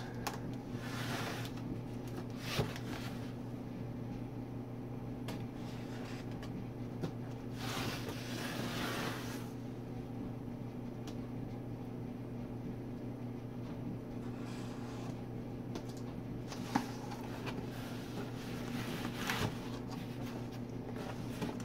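A cardboard shipping box being handled and cut open with a utility knife: scraping and rustling of cardboard and packing tape in several bursts, the longest about eight seconds in, with a couple of sharp knocks, over a steady low hum.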